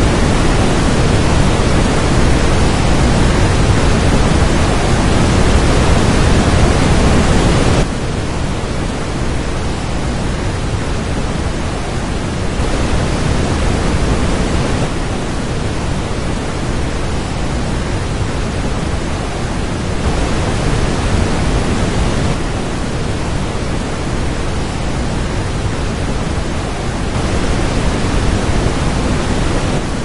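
Rushing white water of a waterfall pouring over rapids: a loud, steady wash of noise. Its level drops suddenly about eight seconds in, then holds fairly even.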